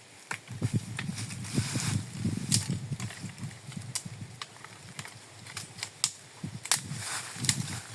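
Irregular rustling and footsteps on leaf litter, with scattered sharp snaps and clicks of dry twigs being handled.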